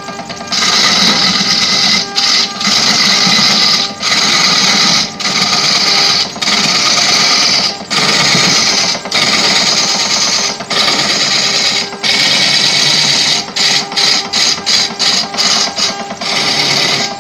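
A large wooden cylinder spinning on a lathe with a hand-held pad pressed against it: a loud rushing hiss of rubbing over a faint steady motor hum. The hiss breaks off briefly every second or so as the pad is lifted and set back, and turns into quicker short strokes near the end.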